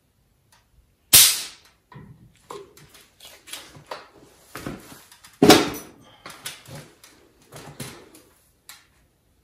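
Irregular handling noises: a string of short rustles and scrapes. The loudest come about a second in and again about halfway through.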